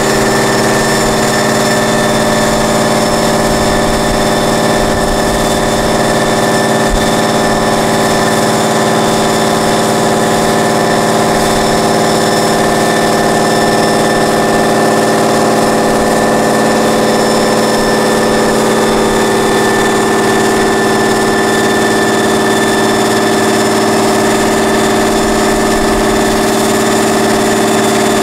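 Tatra 815 8x8 truck's diesel engine held at steady, raised revs, a constant loud drone with a whine above it, as the truck works slowly through deep mud.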